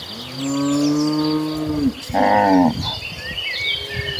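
Cattle mooing: one long, low moo, then a shorter, higher-pitched moo about two seconds in. Small chirps follow near the end.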